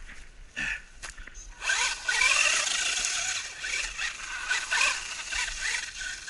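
Brushed electric motor and spur gearing of a small RC monster truck whining under throttle, starting about a second and a half in, its pitch rising and falling as the throttle is worked, with the tyres scrabbling through dry leaves.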